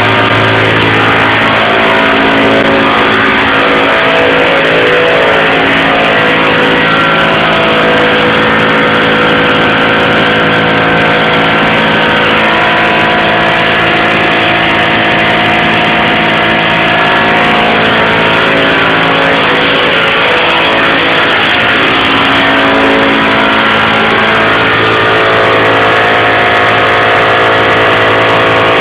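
Air compressor running steadily under load, its motor hum wavering slightly in pitch, together with the continuous hiss of a paint spray gun spraying polyurethane (PU) paint.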